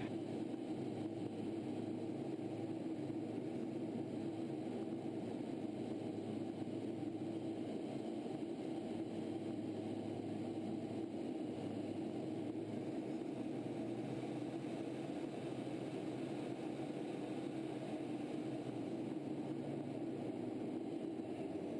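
Steady jet drone and rushing airflow inside a T-38 chase plane's cockpit in flight.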